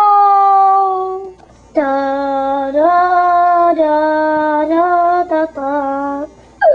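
A high voice singing a wordless tune: a long held note sliding slowly down, a short break, then a string of held notes stepping up and down, with a short falling note at the end.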